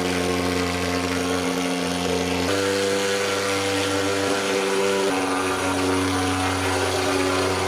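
Motorised insecticide fogging machine running with a steady drone; its pitch steps up about two and a half seconds in and drops back about five seconds in.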